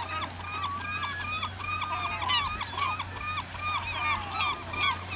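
A flock of gulls calling: many short calls overlapping, several a second.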